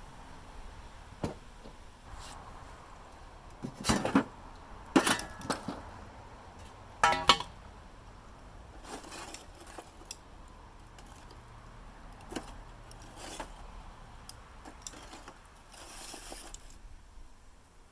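Hard pieces of bamboo charcoal being handled and knocked together: a few sharp clinks and knocks, one about seven seconds in ringing briefly with a clear tone.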